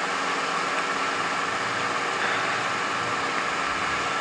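Milking machine's vacuum pump running steadily, a constant hum with a hiss.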